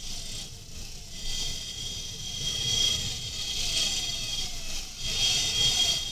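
Motorcycle riding along with its engine running and wind rushing over the handlebar-mounted camera. Behind it, an ambulance siren repeats a falling wail about twice a second.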